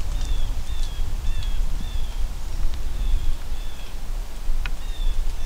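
A bird calling again and again in short, high, slightly falling notes, mostly in pairs, over a steady low rumble.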